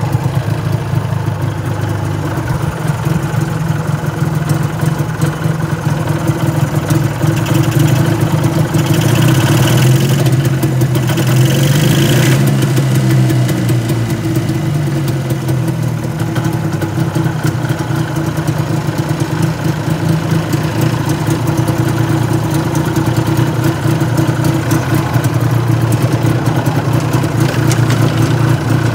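Polaris snowmobile's fan-cooled twin-cylinder two-stroke engine idling steadily, with the hood open. There is a short spell of added hiss about ten seconds in.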